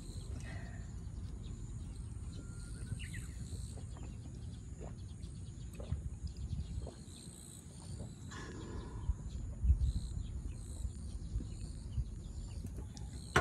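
Outdoor ambience with a steady low rumble of wind against the microphone and scattered faint clicks and knocks, with a soft low thump about two thirds of the way through.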